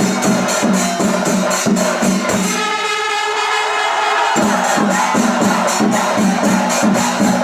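Music with a steady, fast percussion beat. About two and a half seconds in, the beat drops out for roughly two seconds, leaving a held melodic tone, then comes back.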